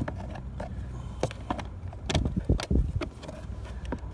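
Plastic cabin air filter cover being fitted back onto its housing behind a 2009 Toyota Camry's glove box: a series of short plastic clicks and knocks, most of them about two to three seconds in.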